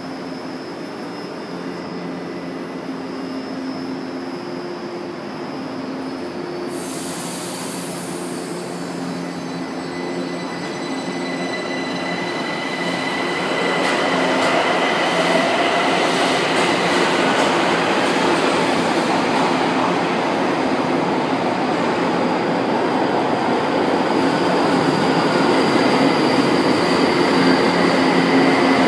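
São Paulo Metro Line 2 train pulling into the underground station, getting much louder about halfway through as it comes alongside the platform, with a steady motor hum underneath and a thin, high wheel squeal.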